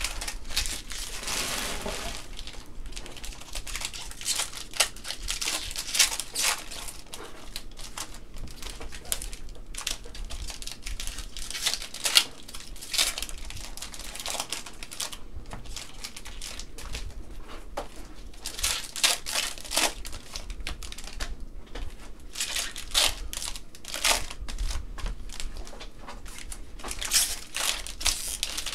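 Trading card packs and cards being handled: irregular crinkling and rustling of pack wrappers with short sharp flicks of cards.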